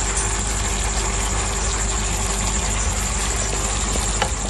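Steady hum and hiss of a lit stove under a karahi of chicken, yogurt and masala cooking, with a few light clicks about four seconds in.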